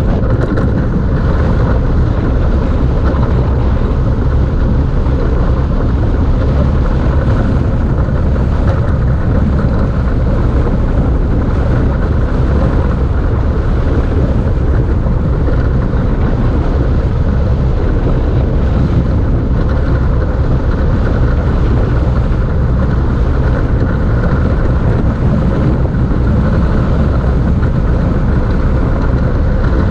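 Engineless gravity race car coasting fast downhill: a steady, loud rush of wind on the onboard microphone mixed with the rumble of its small tyres on asphalt.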